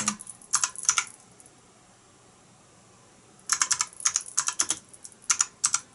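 Typing on a computer keyboard: a few keystrokes, a pause of about two seconds, then a quick run of keystrokes.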